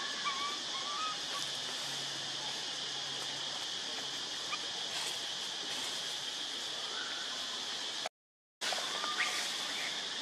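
Steady, shrill chorus of forest insects, with a few faint short chirps over it; the sound cuts out for about half a second around eight seconds in.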